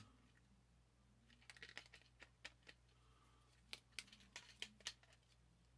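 Faint, scattered clicks of the plastic parts of an Ultra Magnus Transformers action figure being moved and snapped into place as it is transformed by hand.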